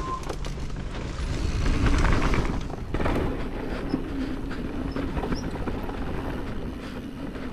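Downhill mountain bike under way: tyres running over dirt and rock, the bike rattling with many sharp knocks, and wind rushing over the helmet camera's microphone, loudest about two seconds in.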